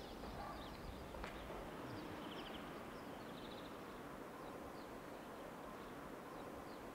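Faint outdoor ambience: a steady low background hiss with small birds chirping now and then, including a short trill about two seconds in. A single sharp click about a second in.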